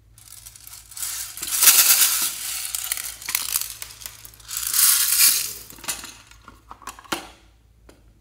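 Small plastic pearl beads rattling and pouring out of a plastic box, in two long pours, followed by a few scattered clicks near the end.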